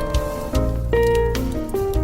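Instrumental jazz: piano or saxophone melody notes over a walking bass line.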